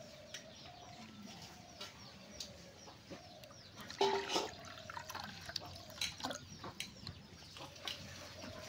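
Water poured from a jug into a ceramic bowl, splashing loudest about four seconds in, with birds calling in the background.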